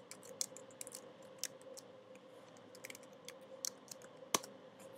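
Keystrokes on a computer keyboard: a line typed as a string of short, irregular clicks, with one louder click near the end.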